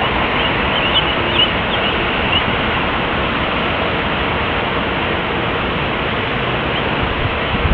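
Steady, distant roar of a Boeing 747 freighter's jet engines as it taxis, an even rushing noise with a faint hum in it. A few faint high chirps sound over it in the first couple of seconds.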